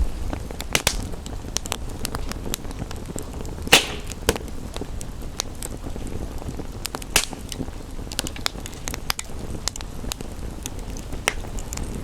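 Wood fire crackling with frequent sharp pops, the loudest about four seconds in, over a steady low rush of rain.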